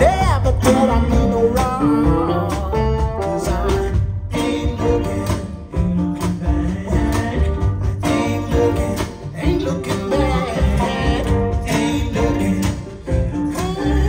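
A recorded song with a singing voice over a heavy bass line, played back loudly through Wilson Audio floor-standing loudspeakers in a demonstration room.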